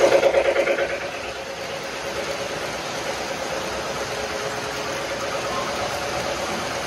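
Three-rail O-gauge model passenger train rolling past on tubular track: a steady metallic rumble and hum of the wheels and motor, loudest in the first second as the cars pass closest, then settling to a steadier level.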